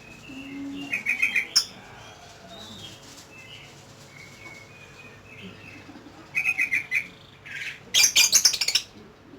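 Lovebird chirping in rapid chattering bursts: three quick runs of high chirps, the last and loudest near the end, with fainter scattered calls between them.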